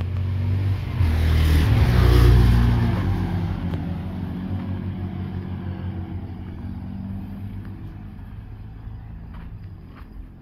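A car passing on the nearby road: its engine and tyre noise grow louder to a peak about two seconds in, then fade slowly away.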